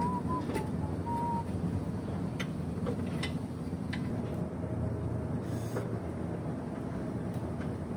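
Isuzu 4JJ1 four-cylinder common-rail diesel engine idling steadily, with a few faint ticks, after its malfunctioning fuel injector has been replaced.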